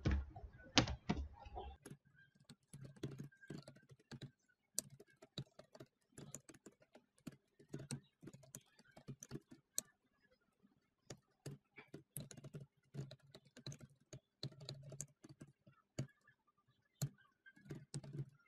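Computer keyboard typing: faint, irregular runs of keystrokes as commands are entered, with a short pause about ten seconds in.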